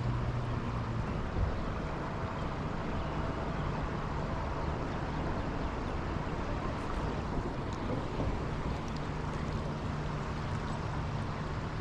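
Steady rushing of river water with wind on the microphone, and a low steady hum underneath.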